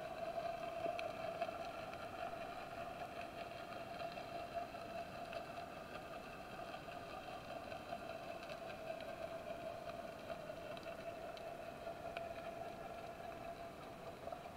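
Underwater ambience picked up through a camera housing: a steady, unchanging hum with several fixed tones and scattered faint clicks.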